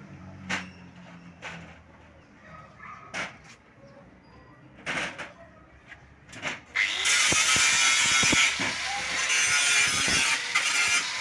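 Scattered clicks and knocks of something being handled, then a loud steady rushing hiss that starts abruptly about seven seconds in and keeps going.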